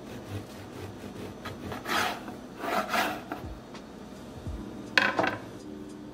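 Serrated bread knife sawing through a hard, crusty whole-grain loaf on a wooden cutting board, with a few rasping strokes about two and three seconds in. A sharp knock follows about five seconds in.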